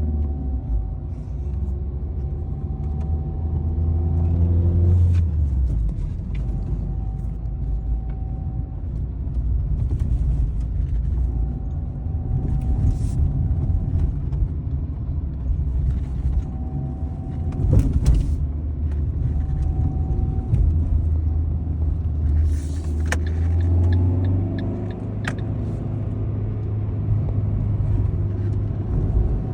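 Fiat Punto engine running, its pitch rising a couple of times as the accelerator is pressed, with a scattering of sharp knocks and clicks. The owner hears a strange noise only under throttle, and also at switch-off, and takes it for play or looseness somewhere.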